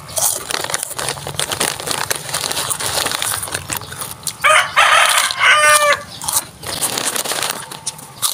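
Crunchy snack sticks being bitten and chewed close up, with dense crackling crunches. About four and a half seconds in, a rooster crows loudly for about a second and a half, its call rising and then wavering.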